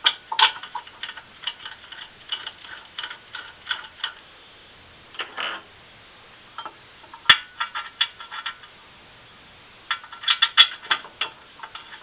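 Light metallic clicks and clinks in irregular runs, from hand tools and brake hardware being handled while the caliper bracket goes on; a dense flurry of clinks comes near the end.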